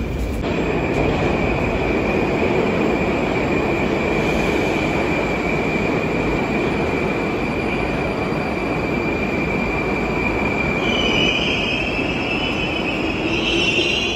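Moscow metro train running: a steady rumble of wheels on rail with a steady high whine. A second whine rises in pitch about eleven seconds in.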